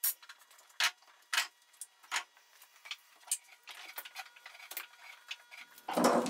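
Bar clamps being loosened and taken off a glued-up joint: scattered sharp metallic clicks and clacks, a few every couple of seconds, with a louder burst of noise near the end.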